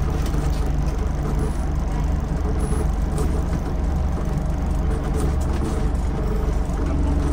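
Scania N94UD OmniDekka double-decker bus engine running steadily under load, its note holding even with no gear change, with a few faint clicks over it.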